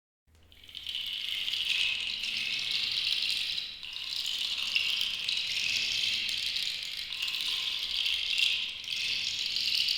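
Small jingle bells (cascabeles) shaken continuously, a high jingling shimmer that fades in over the first second and dips briefly a little before four seconds in.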